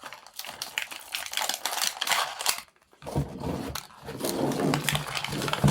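Plastic packaging crinkling and rustling as it is handled, in two stretches with a short break about three seconds in.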